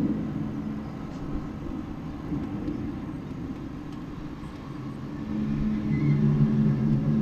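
An unexplained low droning noise heard outdoors, the so-called 'trumpet sound from the sky': a steady low hum made of several held pitches. It fades out about a second in and swells back about five seconds in.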